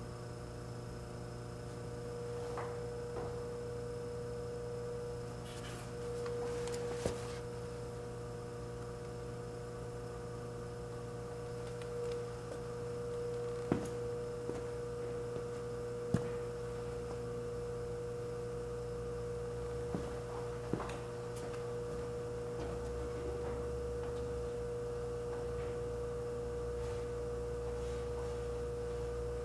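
Antique Frigidaire refrigerator compressor running with a steady hum, on a fresh test charge of R600 butane refrigerant. A few faint ticks sound here and there.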